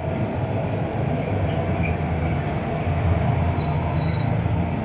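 Steady low rumble, loud and unbroken, with no voices over it.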